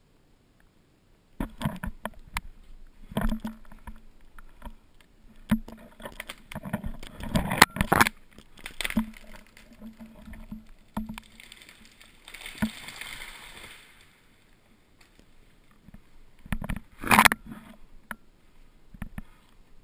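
A felled tree going over: wood creaking and snapping in irregular cracks for several seconds, loudest around eight seconds in. Then comes a rushing swish of branches and a single loud crack near the end.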